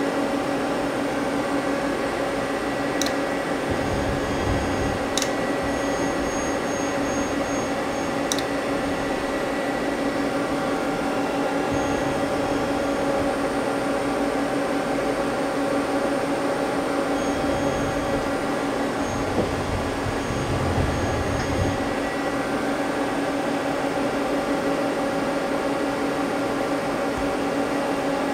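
Steady, many-toned hum of a powered-up Mazak CNC lathe standing idle with its spindle stopped, and a few faint clicks from control-panel keys being pressed.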